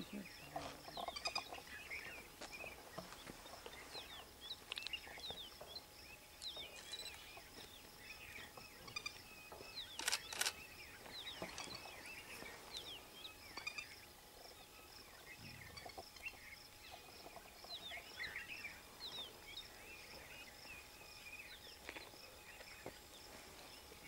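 Birds chirping: many short, faint chirps and whistles from several birds, over a steady high-pitched pulsing in the background, with one sharp click about ten seconds in.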